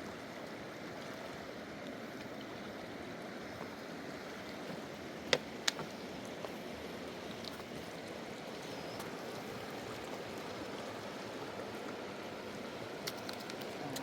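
Fast-flowing mountain river rushing steadily, with two sharp knocks about five seconds in and a few faint clicks near the end.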